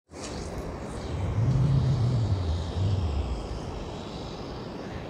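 Open-air beach ambience: a steady rush of wind and distant surf, with a low rumble swelling from about one to three and a half seconds in, like wind buffeting the microphone. The sound cuts in after a split-second silence at the start.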